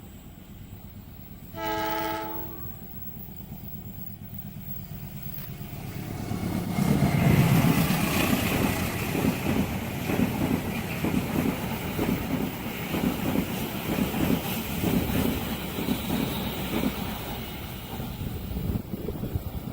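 A train sounds one short horn blast about two seconds in, then passes close by from about six seconds in: a loud rumble followed by a steady clatter of wheels over the rails.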